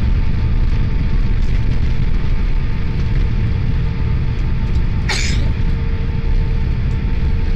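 Steady loud low rumble of a jet airliner heard from inside the cabin as it rolls out along the runway after landing, with a constant hum underneath. A brief sharp whoosh about five seconds in.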